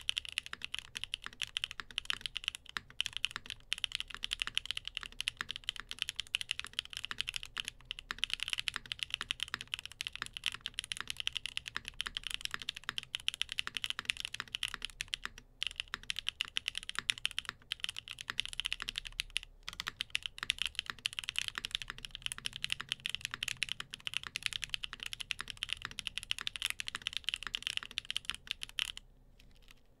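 Steady fast typing on a TGR Tomo SE mechanical keyboard built with stock Gateron Cream Soda switches, a polycarbonate plate, Staebies stabilizers and GMK Pono keycaps, with no foam inside: a dense, continuous clatter of keystrokes with a few short breaks, stopping near the end.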